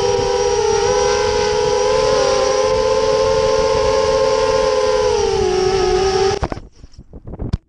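FPV quadcopter's motors and propellers whining at a steady pitch; the whine sags slightly, then cuts off suddenly about six seconds in, followed by a few short knocks.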